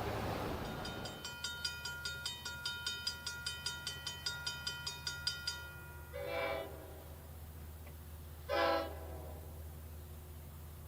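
Horn of a Long Island Rail Road DE30AC/DM30AC diesel locomotive sounding two short blasts, about six and eight and a half seconds in, the second louder. Before them a bell rings rapidly, about five strokes a second, and stops about five seconds in, over a low steady rumble.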